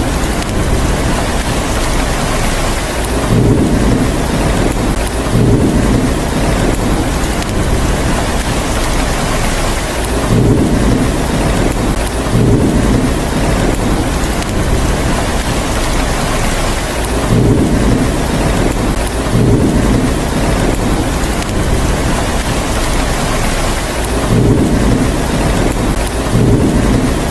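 Steady heavy rain hissing, with low thunder rumbles coming in pairs about two seconds apart, repeating roughly every seven seconds.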